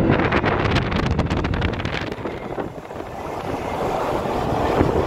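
Road rumble and wind noise from a moving vehicle, with wind hitting the microphone and a spell of rapid crackling in the first two seconds.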